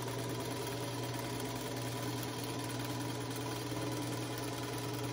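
Singer Featherweight sewing machine running steadily at an even speed, stitching a quarter-inch seam through quilt fabric strips.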